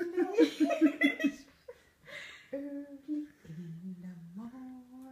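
Quick rhythmic laughter for about the first second and a half. A pause follows, then a few long hummed notes that step down in pitch and back up.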